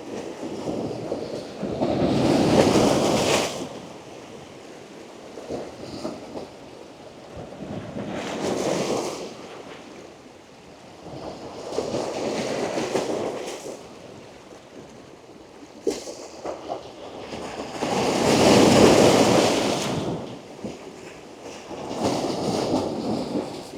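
Strong ocean surf breaking on rocks at the waterline: about five waves surge in and wash back, the loudest about three-quarters through. One short sharp click about two-thirds through.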